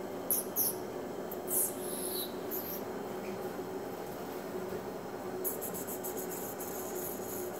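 Pomsky puppies playing on a hard tiled floor: light, scattered high scratching and rustling as they scamper and drag a toy of artificial flowers, with a quick run of scratching near the end, over a steady low hum.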